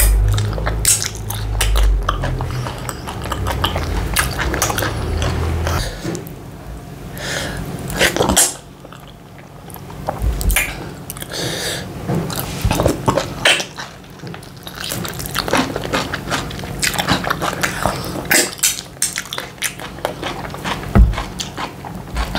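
Close-miked eating by hand: chewing and lip smacking on semolina fufu and slimy ogbono soup, with wet finger licking and fingers squelching in the soup. A low rumble runs under the first six seconds.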